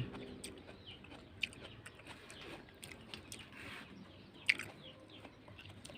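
Someone chewing a mouthful of ripe honeydew melon: faint wet mouth sounds with a few sharp clicks or smacks, the loudest about four and a half seconds in.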